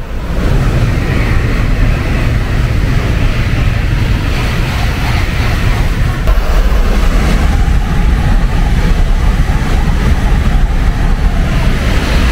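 N700-series Shinkansen bullet train passing through a station at full speed without stopping. The rush swells in within the first half-second, then holds as a loud, steady deep rumble of wheels on rail under a rushing hiss of air.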